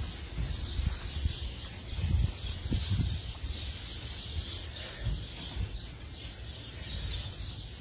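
Small birds chirping faintly over uneven low rumbling noise.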